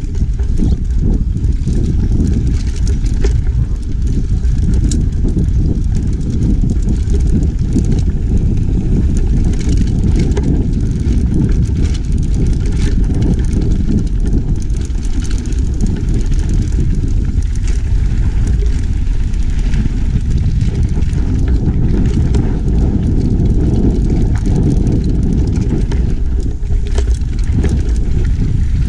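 Mountain bike rolling along a dirt singletrack, heard from a handlebar-mounted camera: a steady low rush of wind and tyre noise, with frequent small clicks and rattles from the bike over the bumps.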